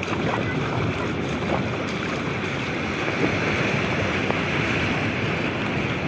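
Steady wash of shallow surf running over wet sand, with wind buffeting the microphone.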